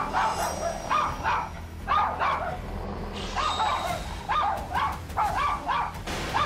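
Dogs barking and yelping in a quick series of short, sharp calls, about two a second with a brief pause near the middle, in a Doberman's attack on a small dog.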